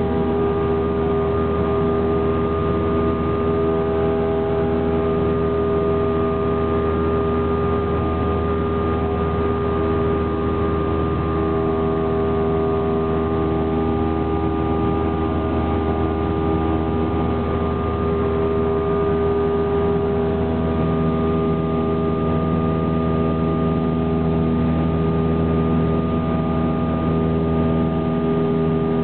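Piston engine and propeller of a single-engine high-wing light aircraft in flight, heard from inside the cabin: a loud, steady drone of several held tones, shifting slightly in pitch about two-thirds of the way through.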